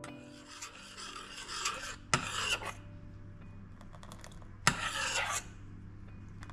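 A metal teaspoon scrapes and stirs inside a small stainless steel saucepan of melting milk chocolate, butter and cream. Twice, about two seconds in and again near five seconds, the spoon knocks sharply against the pan, and each knock is followed by a short burst of scraping.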